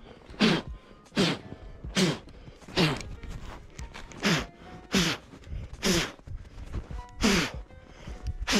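A person blowing short, sharp puffs of breath onto a small drone to clear snow out of it, about one puff every three-quarters of a second. The longest and loudest puff comes near the end.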